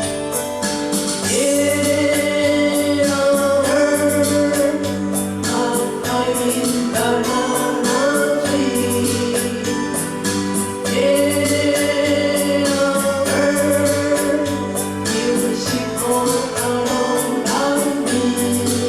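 A song with sung vocal melody over instrumental accompaniment and a steady beat, the voice holding long notes.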